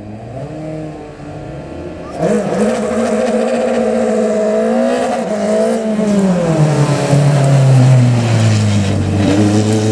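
Single-seater formula race car engine running on the start line, then revving hard about two seconds in as it gets much louder. The engine note rises and falls, sinking lower toward the end.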